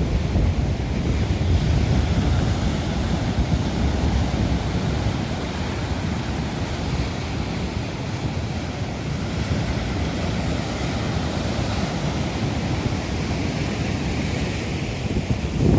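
Storm wind buffeting the microphone over a steady rush of surf, with heavy low rumble throughout.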